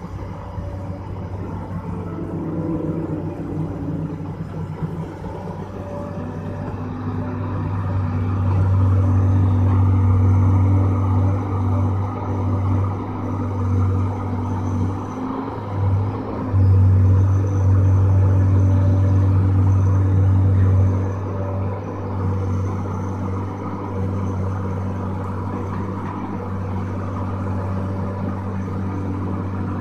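Tracked hydraulic excavator's diesel engine running with a steady low drone. It grows louder from about eight seconds in as the machine digs and lifts a full bucket, then settles back to a lower level after about twenty seconds.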